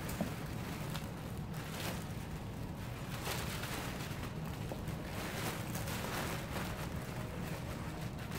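Clear plastic bag crinkling and rustling as it is handled and pulled off a cushioned kayak seat, in repeated irregular bursts.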